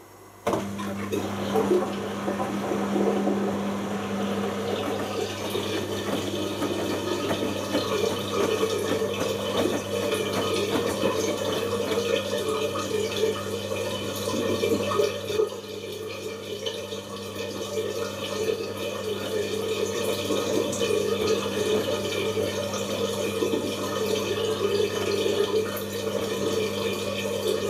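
Bosch Logixx washing machine taking in water for a rinse. The water starts rushing in abruptly about half a second in and keeps going steadily, with a low hum underneath.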